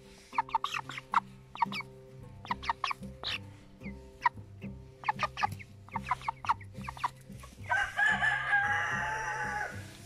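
Broiler chickens clucking in short, quick calls, with a rooster crowing once, about two seconds long, near the end.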